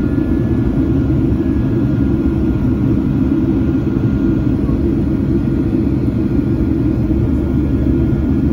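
Cabin noise of a Boeing 737-800 climbing after takeoff, heard from a window seat by the wing: a loud, steady low rumble of its CFM56 jet engines and rushing air, with a thin steady whine above it.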